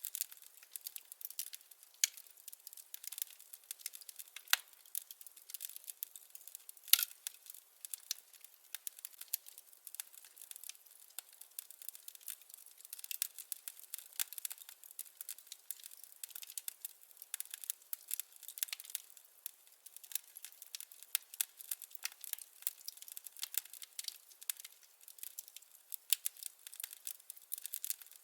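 Wood fire crackling in a fireplace: a dense, irregular stream of small sharp pops and snaps, with a louder pop about seven seconds in. There is no low roar under it.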